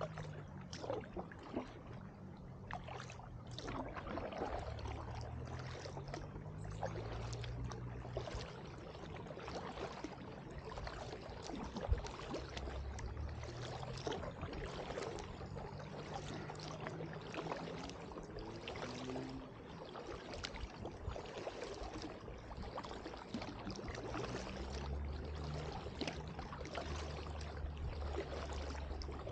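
Kayak paddling: the paddle blades dip and splash, and water trickles and drips off them in a steady run of small splashes, over a low rumble. One sharper knock comes about twelve seconds in.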